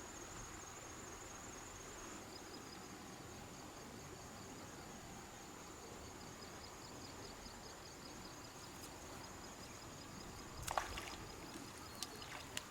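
Insects chirring outdoors: a steady high-pitched whine joined about two seconds in by a second, pulsing trill, over a faint rush of flowing water. Near the end comes one short sharp noise, then a few clicks.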